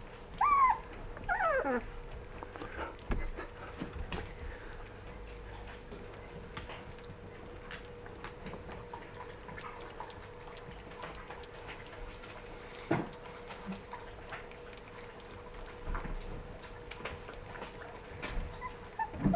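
Rough collie puppies whimpering: a couple of short yelps falling steeply in pitch about a second in, then scattered small scuffles and clicks, with a faint steady hum underneath.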